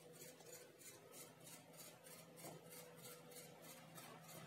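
Near silence: faint background with a steady low hum and a faint high-pitched pulsing, about four pulses a second.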